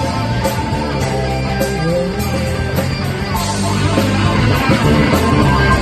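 Live rock band playing an instrumental passage without vocals: electric guitar over a bass line and a steady drum beat.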